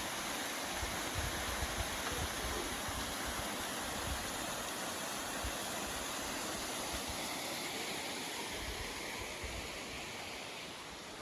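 Waterfall rushing: a steady, even hiss of falling water that grows a little fainter near the end.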